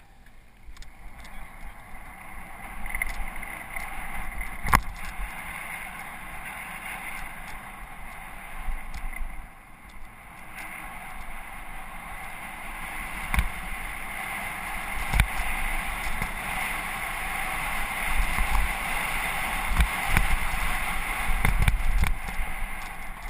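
Mountain bike riding a dirt trail: a steady rush of tyre and trail noise that grows louder in the second half, with several sharp knocks and rattles as the bike hits bumps, and low rumble on the microphone.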